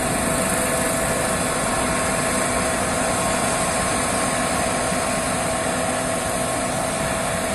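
Case IH Axial-Flow 6150 combine harvester running under load while harvesting triticale: its engine and threshing machinery make a continuous drone with several steady whining tones over it.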